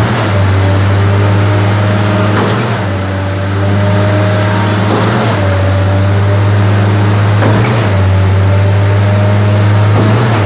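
Schwing stationary concrete pump running under load, its diesel engine droning steadily, with a short knock about every two and a half seconds as the pump changes stroke. Wet concrete pours through the grate into its hopper.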